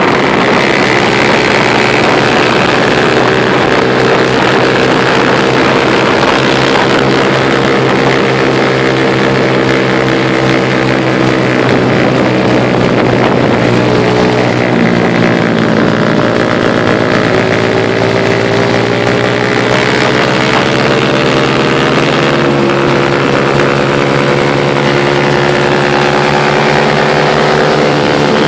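Motorcycle engine heard from on board while riding at speed, running steadily. About halfway through, the engine note drops, then rises gradually again as the bike slows and picks up speed.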